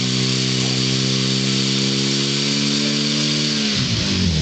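Portable fire pump's engine running steadily at high revs. Near the end the revs drop sharply and then start climbing again.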